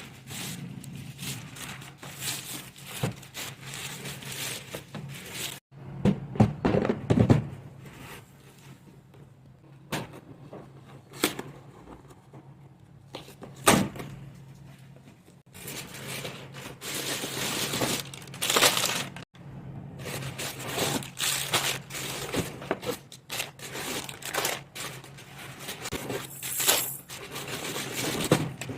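Packaging of a baby walker being handled and unpacked: irregular rustling and crinkling of plastic and cardboard, scraping and tearing, with sharp knocks of parts being set down, loudest about six seconds in and again near fourteen seconds.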